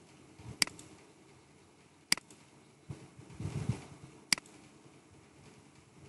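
Three sharp computer mouse clicks, a second and a half to two seconds apart, with a soft low bump between the second and third.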